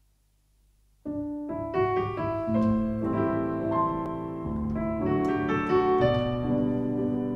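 Near silence, then about a second in a solo piano starts playing a melodic introduction with held chords, before the singers come in.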